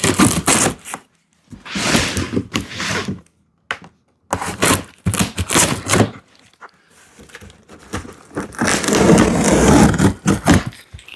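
Cardboard shipping box being opened and handled: a series of scrapes and thunks in several bursts, the longest near the end.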